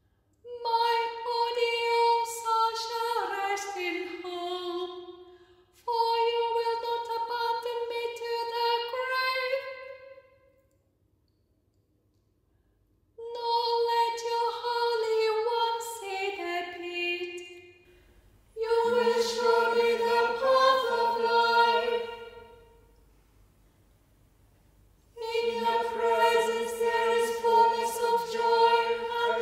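Unaccompanied voices chanting a psalm verse by verse, each phrase held on a reciting note and then stepping down, with short pauses between phrases. A high voice sings the first phrases alone, and about two-thirds of the way in a lower voice joins it.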